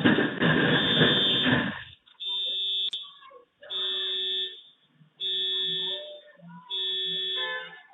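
A loud crash-like noise lasting about two seconds, then a car alarm sounding in repeated tones about a second long, one every second and a half or so, set off by the collision.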